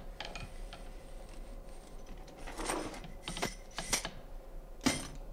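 Unfinished steel scissor halves clinking against one another and against the metal rods they are strung on as they are handled: a run of irregular light metallic clicks and clacks, the sharpest one near the end.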